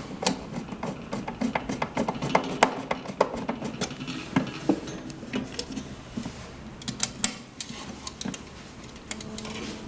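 Screwdriver turning a screw back into the heat press's metal cover: a run of small, irregular metallic clicks and ticks.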